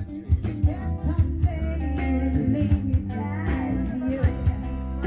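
Background music: an upbeat rock-and-roll style song with singing over guitar and bass and a steady beat.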